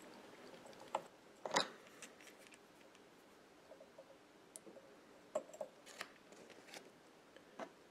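Faint, scattered small clicks and ticks from hand work with thread and tools at a fly-tying vise while a dubbing loop is formed. The clearest ticks come about a second and a half in and again about six seconds in.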